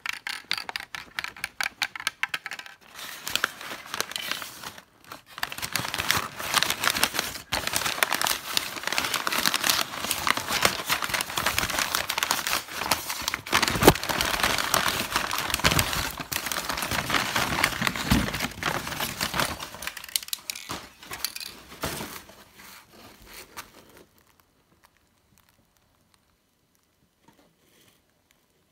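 Brown kraft packing paper being crumpled, rustled and torn as it is pulled from a parcel, with a couple of sharp knocks about halfway through. The crinkling stops about three-quarters of the way through.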